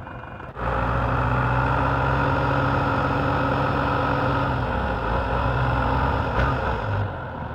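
Belarus 510 tractor's diesel engine running steadily while its hydraulics tip the loaded trolley bed to dump the soil. It is quieter for the first half second, then the engine comes in loud and even.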